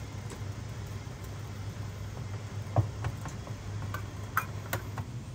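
A steady low hum with scattered light clicks and taps over it, and one sharper knock a little under three seconds in.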